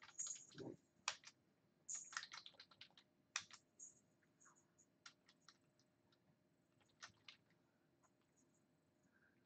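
Faint typing on a computer keyboard: scattered keystrokes and a few quick runs of clicks, with pauses in between.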